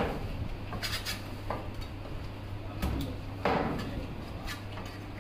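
Heavy steel cleaver chopping through a giant trevally on a thick wooden chopping block: about seven irregular sharp chops and knocks, with a steady low hum underneath.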